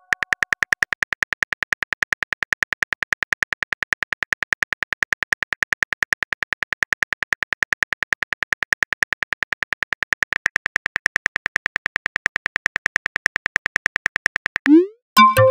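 Simulated phone-keyboard typing clicks from a texting-story app, a rapid even train of key taps as a message is typed out. Near the end a short rising tone and a brief pitched chime sound as the message is sent.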